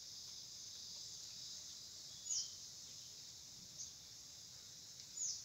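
Steady high-pitched drone of insects, with three short falling bird chirps spread through it.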